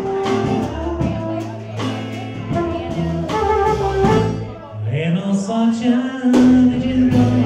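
Small live band playing: trumpet over acoustic guitar and drums. A low note slides up about two thirds of the way through and is then held.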